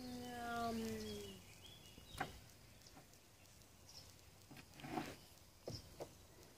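An animal's long call, sliding slowly down in pitch and ending about a second and a half in, followed by a few faint sharp clicks.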